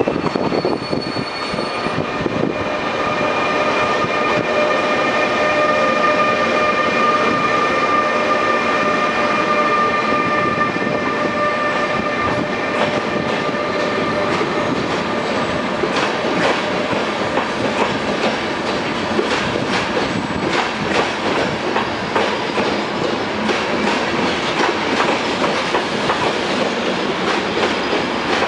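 A departing passenger train passing close by: the electric locomotive gives a steady whine at several pitches for about the first twelve seconds. Then its coaches roll by, their wheels clicking irregularly over rail joints and points.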